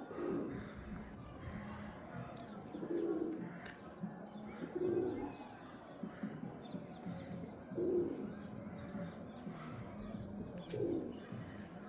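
Domestic pigeons cooing, a short low coo about every two to three seconds.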